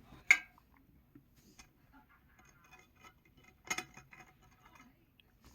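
Small sharp clicks and light metallic clinks from handling a gold Casio calculator watch and its metal band and clasp. One loud click comes just after the start, a quick cluster of clicks about four seconds in, and faint ticks in between.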